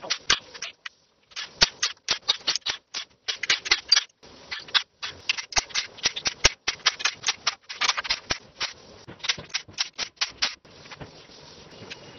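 Rapid, irregular metal clicks and clinks of hand tools and engine parts being handled, coming in quick runs broken by short gaps.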